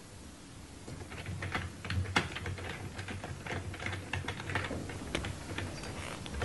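Keystrokes on a computer keyboard: irregular quick clicking that starts about a second in, over a low steady hum.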